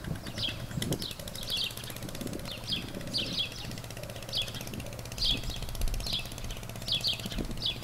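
Small birds calling repeatedly: short, sharp descending chirps, often in quick pairs, about one a second, over a faint low rumble.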